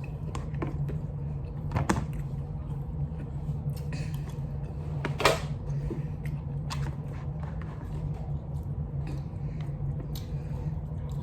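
Close-up eating sounds from a seafood mukbang: chewing and smacking, with scattered short sharp clicks and a louder snap about five seconds in. A steady low hum runs underneath.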